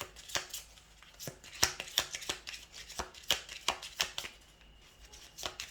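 A deck of reading cards being shuffled by hand: a run of irregular soft snaps and clicks that eases off for a moment near the end.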